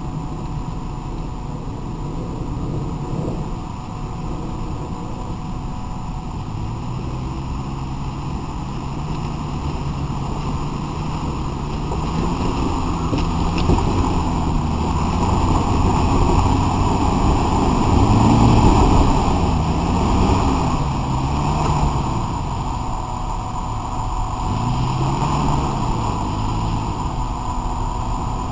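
Off-road SUV's engine revving as it crawls up a steep rocky slope. The revs climb from about a fifth of the way in, peak past the middle, then rise and fall several times as the driver works the throttle.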